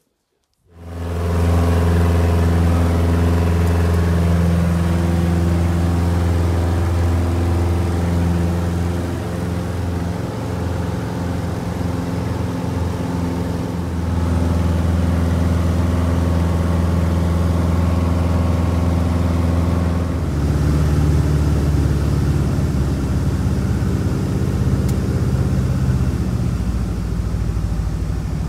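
Steady drone of a small bush plane's piston engine and propeller, heard from inside the cabin in flight. It starts abruptly and its tone shifts about twenty seconds in.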